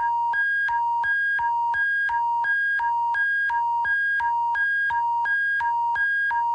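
Electronic emergency-alert attention tone: two pitches alternating high and low, each held about a third of a second, in a steady repeating cycle.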